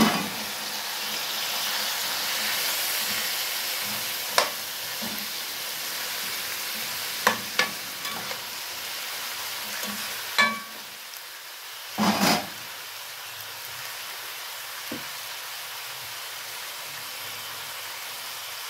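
Chicken pieces sizzling in hot fat with browned onions in an enamelled pot, a steady frying hiss. A metal spoon stirring them knocks against the pot several times, with a longer scrape about twelve seconds in.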